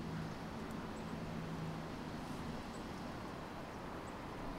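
Steady low rumble and hiss of a slowly moving car, with a low hum that fades out about halfway through.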